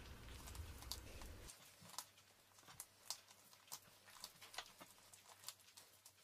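Faint, irregular soft taps and squishes of hands folding and pressing butter into a soft yeast dough on a countertop.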